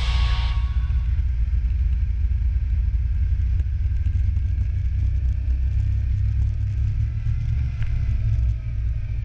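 Snowmobile running, heard as a steady low rumble with a faint, slowly rising whine, muffled as through a GoPro's housing; it drops off near the end.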